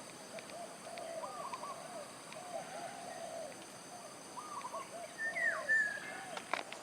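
Birds calling: a run of short, low, arched notes repeated through most of the stretch, and about five seconds in a louder, higher whistled note that sweeps down and then holds briefly.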